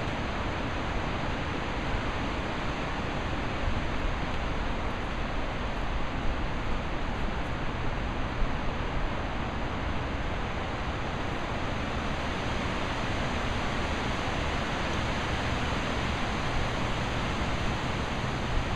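Steady, even hiss of background noise, with no clear calls from the chickens.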